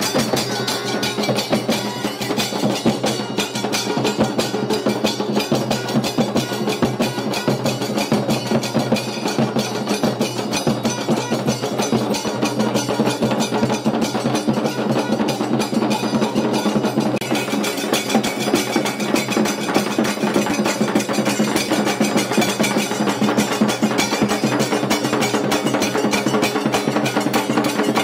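Music with fast, dense drumming: rapid strikes over a steady pitched backing.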